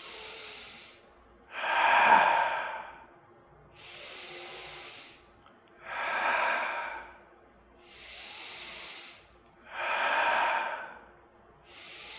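A man's slow, paced yoga breathing. A quieter, hissy in-breath alternates with a louder, fuller out-breath, three times over, about four seconds per breath.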